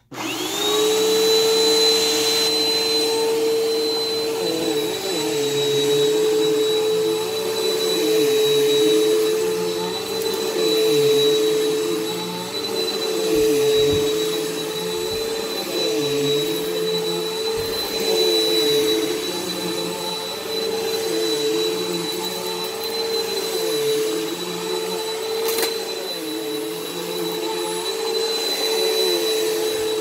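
Bissell PowerForce Helix bagless upright vacuum switched on, its motor spinning up within a split second to a steady whine. It is then pushed back and forth over thick shag carpet, the sound wavering with each stroke about every two seconds.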